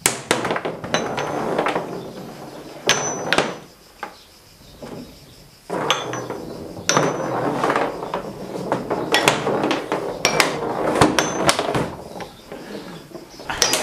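Foosball table in play: quick, irregular knocks and clacks of the ball and the rods' figures, with a quieter spell about four seconds in.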